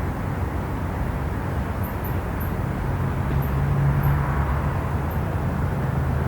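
City traffic ambience: a steady low rumble of road traffic, with one vehicle getting louder and humming about halfway through. A few faint high chirps sound over it in the middle.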